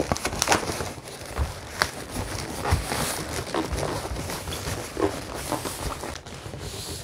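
Latex balloons squeaking and rubbing against each other as a 260 twisting balloon is twisted and wrapped into a cluster of round balloon bubbles: irregular short squeaks and creaks.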